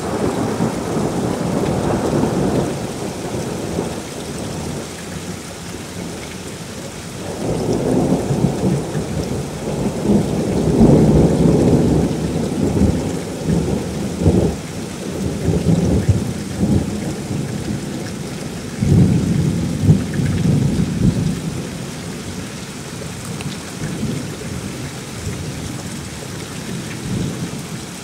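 Thunder rolling over steady rain. A rumble at the start is followed by a long, rolling peal that builds about a quarter of the way in and lasts several seconds. Another peal comes about two-thirds through, while the rain hisses throughout.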